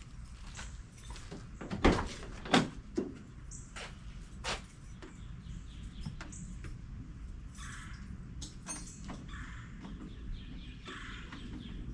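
Vehicle door and handling noises: two sharp knocks about two seconds in, then scattered light clicks over a low background hum.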